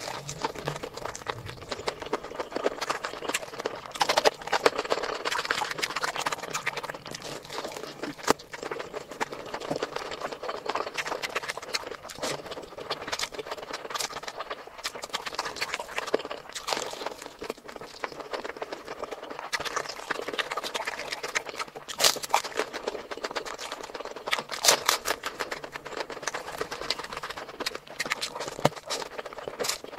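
Close-miked eating sounds: wet chewing and lip smacking, with many irregular sharp clicks and smacks.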